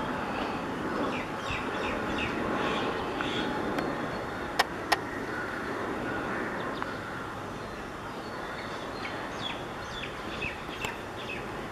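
Jet noise from an Airbus A320-232's IAE V2500 engines on landing approach, a steady rushing that slowly fades. Many short bird chirps sound over it, and two sharp clicks a third of a second apart come about halfway through.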